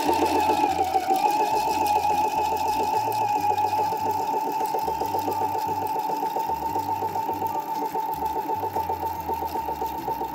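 Electric home sewing machine stitching a seam with a twin needle at a steady speed: an even motor whine over a rapid, regular clatter of the needle strokes, easing slightly in level toward the end.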